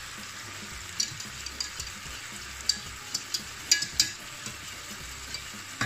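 Beef steak frying in hot oil in a pan: a steady sizzle with scattered sharp pops, several close together near the middle.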